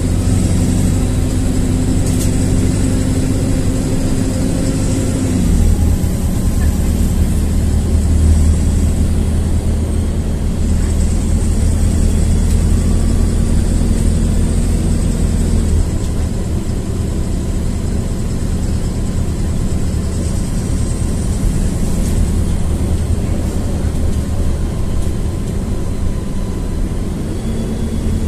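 LiAZ-4292.60 city bus under way, heard from inside the cabin: the diesel engine runs with a steady low hum. Its pitch steps down about five seconds in and shifts again about halfway through, with faint rising and falling high whines above.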